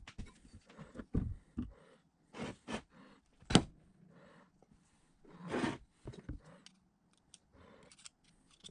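Metal clicks, knocks and scrapes of an old electric motor being taken apart by hand: the end bell is worked off the stator housing and handled on the workbench, with one sharp knock about three and a half seconds in and a longer scrape a couple of seconds later.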